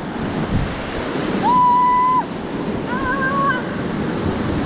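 Whitewater of the Beas river rushing around a raft, with wind buffeting the microphone. Two long, high-pitched cries ring out over the water, the first about one and a half seconds in and a wavering one about three seconds in.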